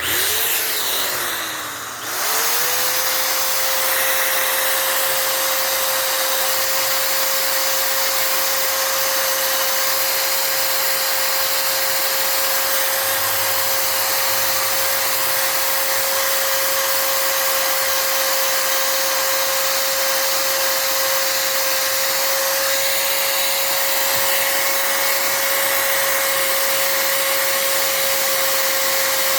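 A high-speed electric motor with a rush of air, of the vacuum or blower kind. It spins up, slows about two seconds in, then spins up again and runs steadily with a constant whine.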